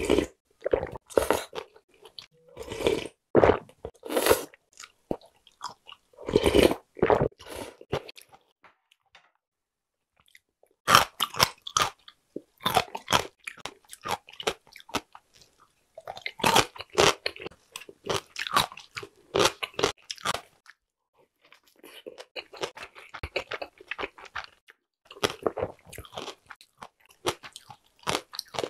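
Close-miked eating sounds: broth sipped from a spoon and chewing, then crisp crunching of pickled radish with chewing, broken by a near-silent pause of about two seconds a third of the way through. Softer chewing toward the end.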